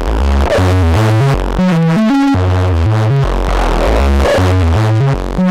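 Synthesizer bass riff fed back through the channels of a Finegear MODMIX analog mixer, giving a thick, gritty tone. The notes step upward and drop back down in a phrase that repeats about every two seconds.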